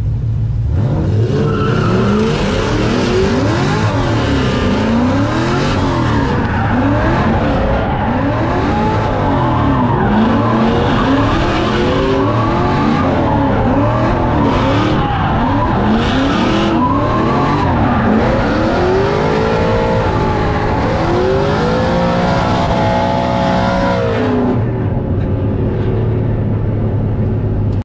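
Drift car engines revving hard, the pitch climbing and falling again every second or two as the cars slide through the course, with tyres screeching.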